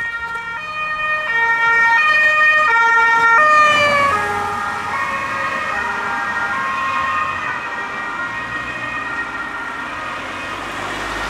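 Two-tone police siren on an unmarked Skoda Octavia, alternating high and low notes about every 0.7 seconds as the car approaches and passes. About four seconds in, the pitch drops as the car goes by, and the siren then carries on lower and a little quieter as the car drives away.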